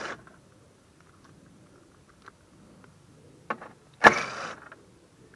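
Hand tools working bolts on a push mower: a couple of sharp metal clicks, then a short metallic rattle about four seconds in.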